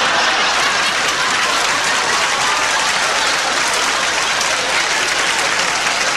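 Audience laughing and applauding, a dense, steady wash of clapping in response to a comedy punchline.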